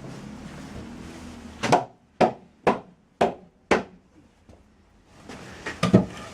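Hammer blows: five sharp strikes about half a second apart, then one more near the end.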